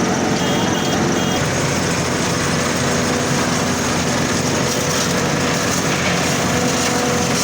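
Corn combine harvester running steadily under load, a dense machine drone with a constant engine hum. A couple of faint short high tones sound about a second in.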